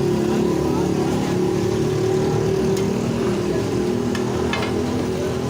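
An engine running steadily at a constant pitch, with voices in the background.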